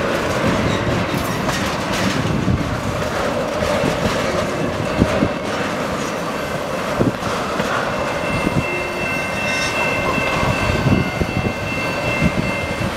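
Freight train of tank cars rolling past close by, wheels clicking and knocking over the rail joints. A steady high squeal joins about eight seconds in and stops just before the end.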